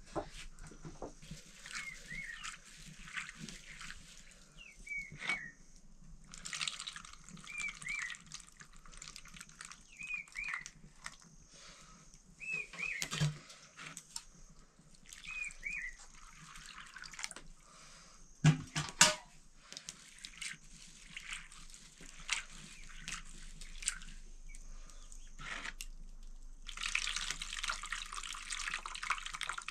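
Water splashing and dripping in patches. A short double chirp repeats about every two and a half seconds through the first half, and a couple of sharp knocks come about two-thirds of the way through.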